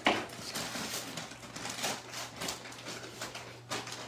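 Plastic bag of frozen french fries crinkling and rustling as it is opened and handled, a run of irregular crackles with a sharp one at the start.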